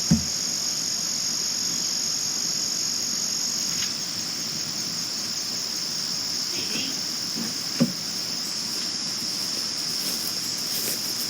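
Male crickets chirping in a steady, high, continuous trill. A brief low knock sounds near the start and another about eight seconds in.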